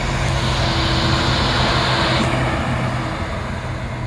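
SA133 diesel railcar running past, a steady engine drone under a hiss that stops sharply about two seconds in.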